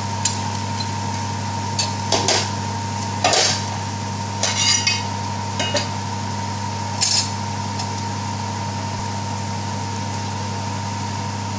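Metal teaspoon clinking and tapping against pots and spice containers as ground spices are measured into the pan, about seven short clinks in the first seven seconds, over a steady electrical hum.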